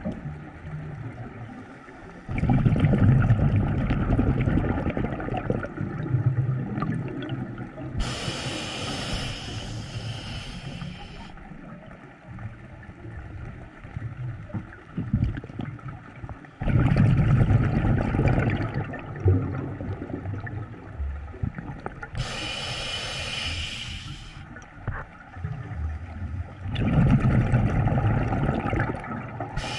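Scuba diver breathing through a regulator underwater. Two hissing inhalations, each a few seconds long, alternate with three loud spells of exhaled bubbles gurgling past the microphone, with quieter pauses between breaths.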